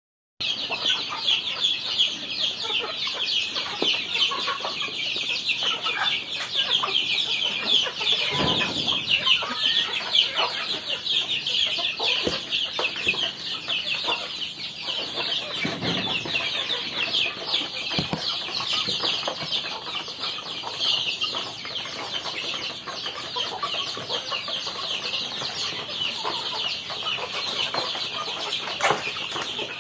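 A flock of young native chickens peeping and clucking nonstop, many high calls overlapping.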